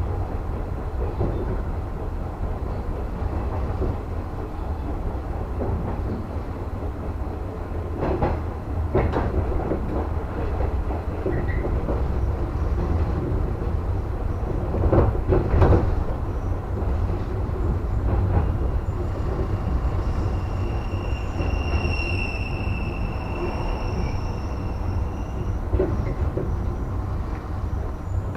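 A JR West 115 series electric train heard from inside the car as it runs: a steady low rumble of wheels on rail, with a few clacks over rail joints or points. A high squeal is held for several seconds past the middle.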